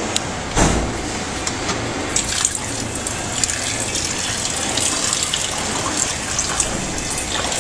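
Water draining out of an IPL hair-removal machine's cooling-water system, running and splashing steadily, with more splashing from about two seconds in. A single thump about half a second in.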